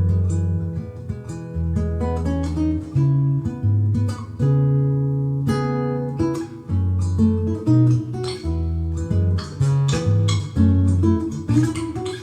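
Acoustic guitar playing a tune: plucked chords over deep bass notes that change about once a second.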